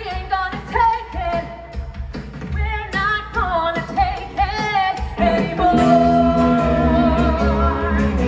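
A live rock band with a singer: a sung melody over light backing, then about five seconds in the full band comes in louder under a long held note sung with vibrato.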